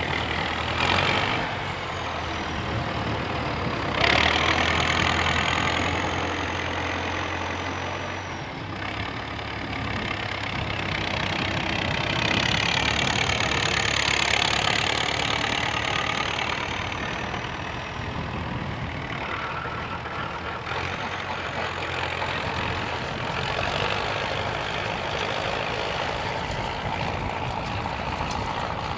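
Four-cylinder engine of a John Deere 6400 tractor working steadily while it pulls a reciprocating power harrow and seed drill. It grows louder about four seconds in and again around the middle, with a faint high whine that rises and falls.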